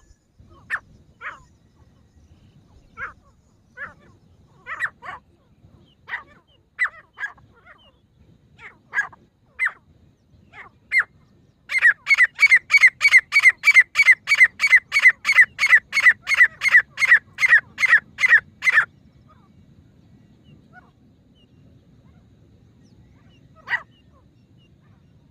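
Female grey francolin calling: single sharp notes at irregular intervals, then a fast, loud run of repeated notes, about three a second, lasting some seven seconds, and one last note near the end.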